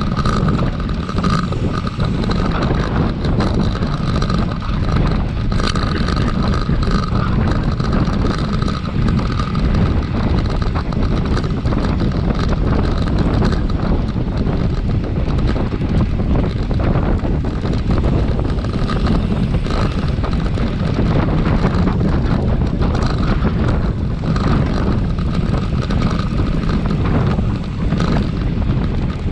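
Wind buffeting the microphone with a steady low rumble. A thin, high tone fades in and out every few seconds over it.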